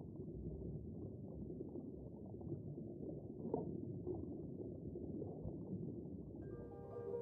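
Muffled underwater ambience: a low, steady rumble with one brief tick about three and a half seconds in. Mallet-percussion music comes in near the end.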